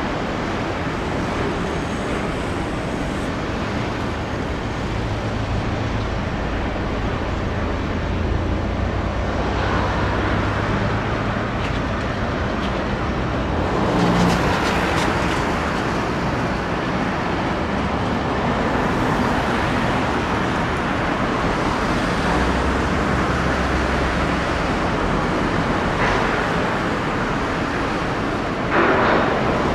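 Steady outdoor traffic noise: vehicles passing with a low engine rumble that swells and fades, and a short louder knock near the end.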